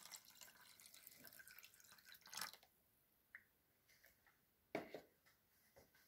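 Coloured water poured from a small plastic cup into a plastic jug of red water: faint splashing and crackling of foaming liquid for about two and a half seconds. A single light knock about five seconds in.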